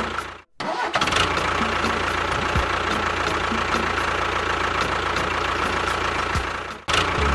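An engine running steadily at idle with faint regular ticking. It cuts out abruptly about half a second in, resumes, and cuts again near the end.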